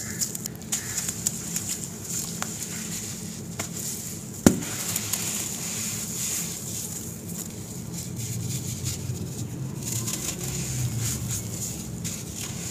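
Hands squeezing and crumbling sand-cement paste and chunks in a basin: crunching and crackling with scattered small clicks, and one sharp knock about four and a half seconds in.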